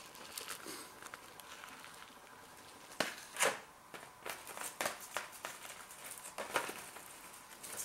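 A thin clear plastic snack tray and crisp seaweed sheets being handled, crinkling and clicking. It is faint for the first three seconds, then comes a handful of sharp crinkles and clicks as a sheet is taken out.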